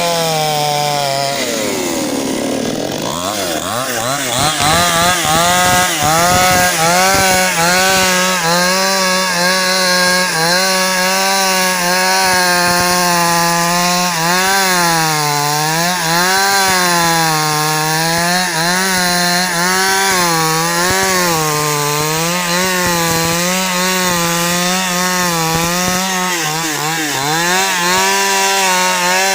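X-Power 52cc two-stroke chainsaw running at high revs while cutting wood. Its engine note drops and climbs back about a second in. From about halfway through, the pitch sags and recovers every couple of seconds as the chain bites into the wood under load.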